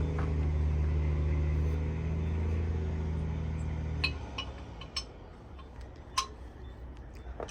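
A steady low mechanical hum, like a running engine, that stops suddenly about four seconds in. After it come a few light metallic clinks of tools on metal.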